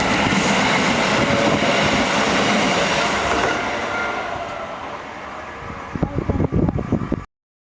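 Keisei Chiba Line local train passing over a level crossing; its running noise fades away after about three and a half seconds. Near the end come a few loud, low, irregular thumps, and then the sound cuts off abruptly.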